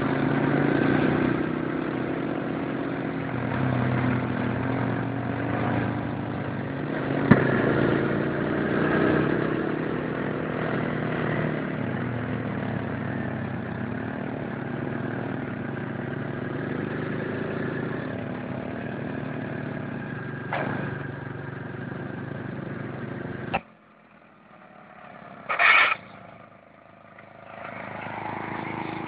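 Engines of small step-through motorcycles running along the road, a steady engine hum that rises and falls in pitch as the riders ride and lift wheelies. About 23.5 s in the sound cuts abruptly to a quieter stretch broken by two short loud bursts, one near 26 s and one at the very end.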